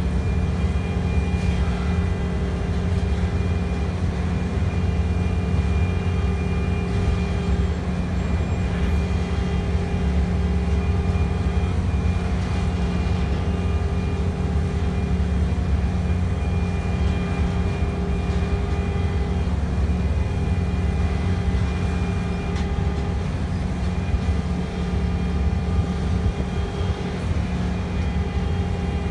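BNSF double-stack intermodal freight train rolling past, its container cars' wheels on the rails making a steady low rumble with a few steady tones riding over it.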